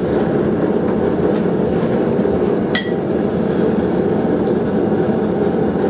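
Propane forge burner running steadily. About three seconds in, a single metallic clink with a short ring, steel tongs knocking against metal as a red-hot steel plate is lifted out of the forge.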